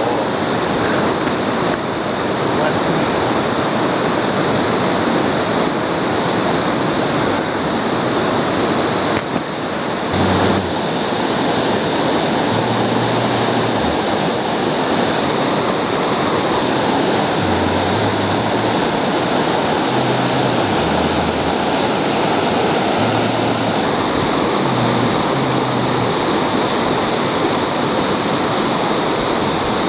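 Steady rush of river water pouring down and flowing past, with a brief bump about ten seconds in.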